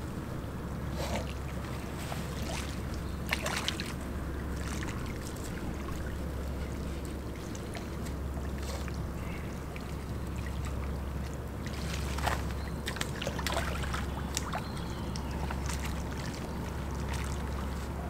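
Water splashing and dripping as a large fishing keepnet is worked in the river's edge and the fish let out, with a few sharp splashes, the clearest about three seconds in and around twelve to fourteen seconds. A steady low rumble runs underneath.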